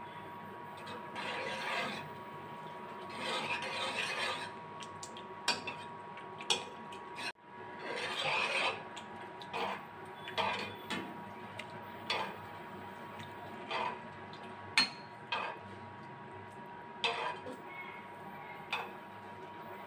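A metal ladle stirs and scoops soup in a steel kadai. It scrapes along the pan and clinks sharply several times against the pan and a glass bowl, over a faint steady hum.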